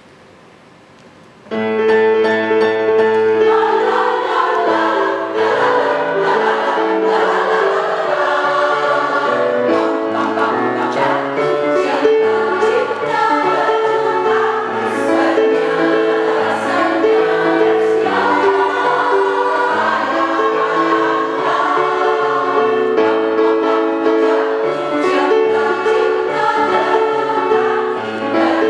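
A choir singing in full sustained chords, the many voices moving together. The singing starts suddenly about a second and a half in, after a moment of quiet hall sound.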